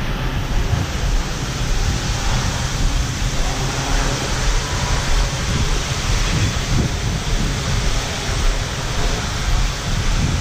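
Steady rushing wind noise buffeting the camera microphone, with a constant low rumbling flutter.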